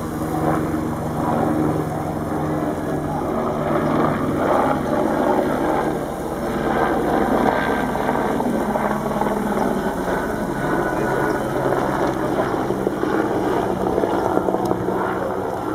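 Lady Knox Geyser erupting: a loud, steady rushing of its jet of hot water and steam.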